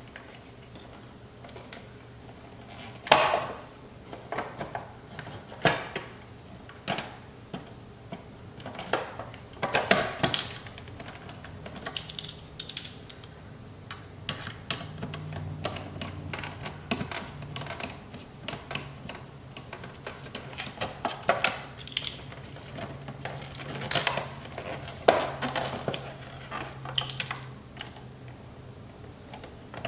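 Scattered clicks, taps and knocks of a hand screwdriver working a screw into a Cadillac CTS-V's plastic side-mirror housing, the parts clattering as they are held and pressed together. The sharpest knocks come about 3 s in, about 10 s in and around 24–25 s.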